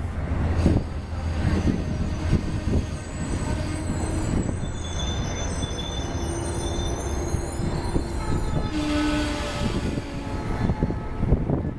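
Amtrak passenger train's Amfleet cars rolling past close by: a steady rumble of wheels on rail, with high squealing tones from the wheels through the middle of the stretch.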